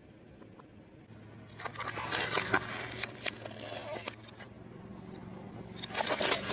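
A car tyre rolling over and crushing plastic, with crackling and cracking crunches about two seconds in and again near the end. Under them runs a low steady engine hum that starts about a second in.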